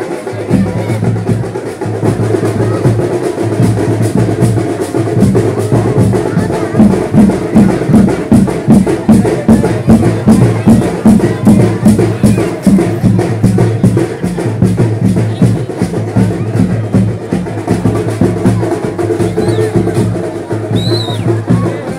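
Loud drum-driven music with a steady beat of about two to three strokes a second, loudest in the middle, with crowd voices mixed in.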